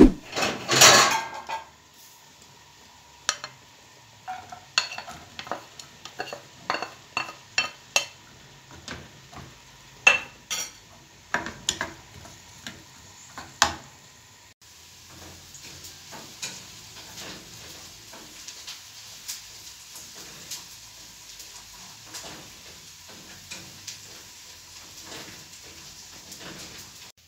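Chopped onions frying in a nonstick frying pan, a spatula clicking and scraping against the pan as they are stirred. It opens with a loud rush of noise; the many sharp clicks give way about halfway through to a steady sizzle with lighter clicks.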